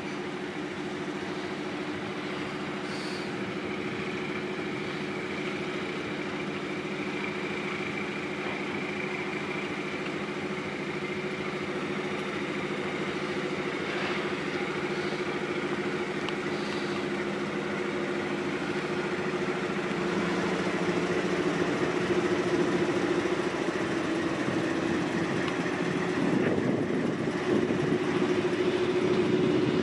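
SM42 diesel shunting locomotive's engine running steadily as it hauls flat wagons slowly along the siding, growing louder over the last third as it draws level.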